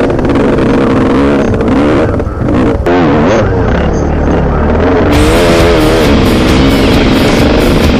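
Dirt bike engine revving up and down hard under load on a loose dirt climb, its pitch rising and falling over and over, with a short let-off a little over two seconds in.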